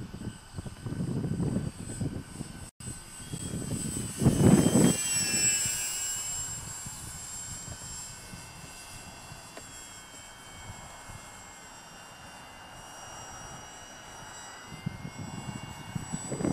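Electric motor and propeller of an FMS 800 mm Fw 190A radio-control model aircraft whining as it flies overhead, the pitch dropping as it passes about five seconds in. Low rumbling gusts come and go, the loudest about four and a half seconds in.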